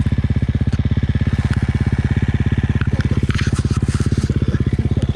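The single-cylinder four-stroke engine of a 2019 KTM 450 EXC dirt bike runs at a low, steady engine speed as an even, rapid chug. A few brief clattering knocks come in the middle.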